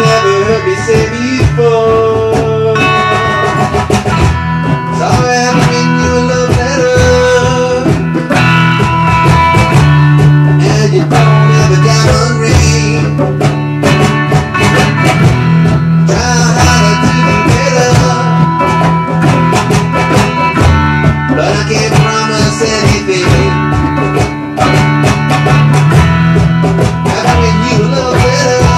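Instrumental break in a live song: acoustic guitar strumming a steady rhythm over djembe hand-drum beats.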